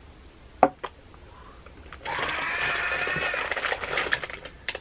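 A sharp tap, then about two and a half seconds of rapid, dense crackling as plastic packaging around a cosmetic product is torn and crinkled open.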